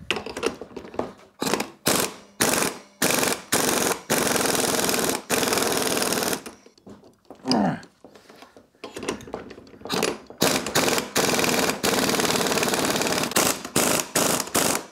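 Cordless impact wrench hammering in repeated bursts on a strut's top shaft nut, with a pause in the middle. The nut is seized on the rusty original shock shaft and barely turns under the hammering.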